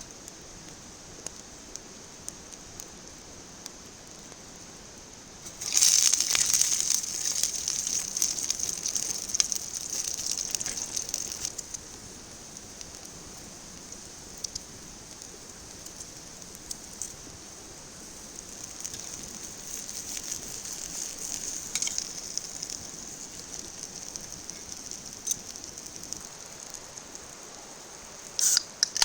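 Food sizzling on a grill over a campfire: a loud hiss with crackling clicks starts suddenly about six seconds in and eases off after several seconds, then returns more faintly later.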